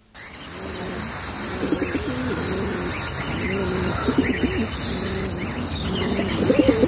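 Recorded birds calling, low repeated wavering calls with higher chirps over them, played back from a cassette tape. The sound cuts in suddenly out of faint tape hiss.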